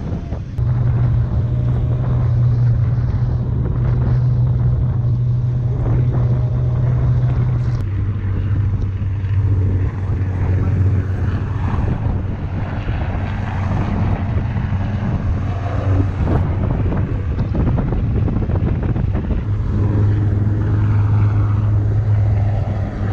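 Outboard motor of a rubber raiding craft running steadily at speed, its hum dropping a little in pitch about eight seconds in, with wind buffeting the microphone and water rushing.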